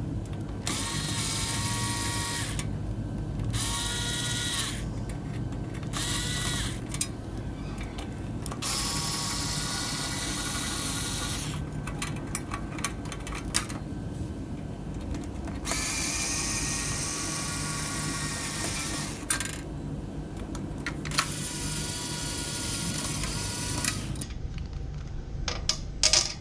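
A power screwdriver backing out the screws of a display's fan assembly. Its motor whines in about six separate runs, some about a second long and others several seconds long, with small clicks between them.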